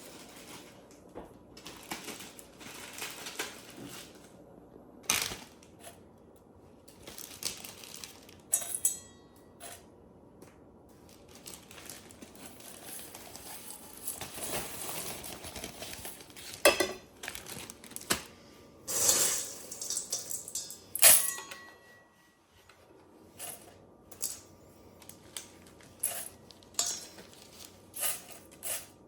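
Bone-dry dehydrated rice pilaf being scooped and poured into a small bowl on a kitchen scale and bagged: irregular clinks of the bowl, rattling of the dry rice and rustles of plastic sandwich bags. The loudest clatters come about two-thirds of the way through.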